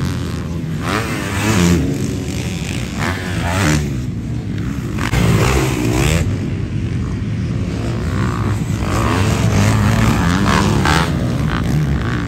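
Motocross dirt bike engines revving hard and backing off over and over as riders work the track, several bikes overlapping, their pitch rising and falling with each throttle pull.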